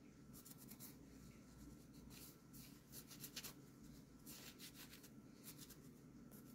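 Microfiber cloth rubbing over a folding knife's handle scale and liner in faint, quick strokes that come in short bursts about once a second.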